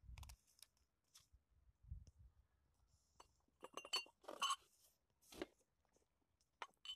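Faint handling sounds: scattered soft clicks, with a few small glassy clinks about four seconds in as a drinking glass is set down.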